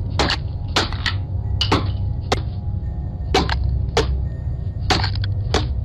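About a dozen sharp knocks at irregular spacing over a steady low rumble.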